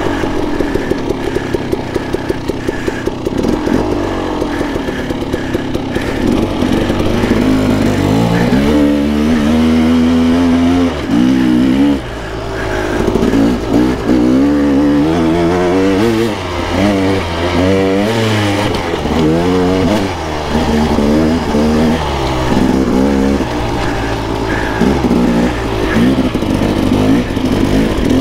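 2016 KTM 300 XC-W dirt bike, its single-cylinder two-stroke engine ridden off-road: pulsing evenly at low revs for the first few seconds, then revved up and let off again and again, the engine note climbing and falling.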